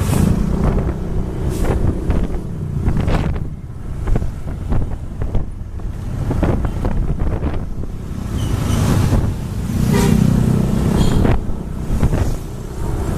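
A vehicle engine running on the road, growing louder near the start and again about two thirds of the way through, with wind buffeting the microphone.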